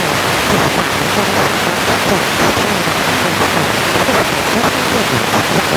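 FM radio tuned to a weak or empty frequency: loud, steady static hiss, with faint traces of a broadcast voice showing through underneath.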